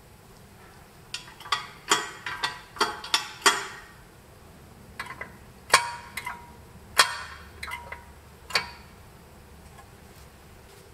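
Sharp metallic taps and clicks from a vintage crank telephone's ringer and mechanism. Several leave a short bell-like ring. There are about eight in quick succession, then a few more spaced out.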